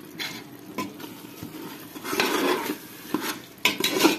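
Perforated steel ladle scraping and knocking against a metal cooking pot as yogurt is stirred into the fried onion-tomato masala, with the masala sizzling between strokes. The strokes are irregular: a longer scrape about two seconds in and a quick run of knocks near the end.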